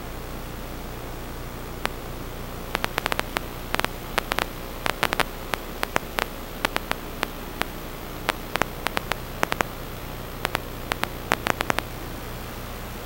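Steady static hiss with a low electrical hum, broken by irregular sharp clicks and crackles from about two seconds in until near the end.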